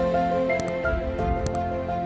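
Background music: soft instrumental notes moving at an even pace, with a few faint light ticks.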